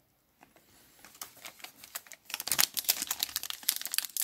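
Foil trading-card pack wrapper being torn open by hand, crinkling and crackling: faint at first, then a dense run of sharp crackles from a little past halfway.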